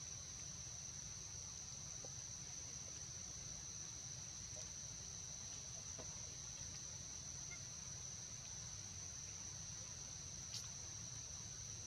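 Insect chorus making one unbroken high-pitched drone, with a single faint click near the end.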